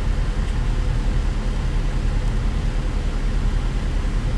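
Diesel engine of a Volvo L90G wheel loader running at a steady speed, heard from inside the cab.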